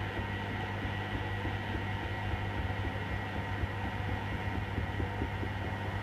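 Hoover WDYN 11746 PG8 washer-dryer tumbling a wet rug in rinse water: a steady hum from its inverter motor, with water sloshing in the drum.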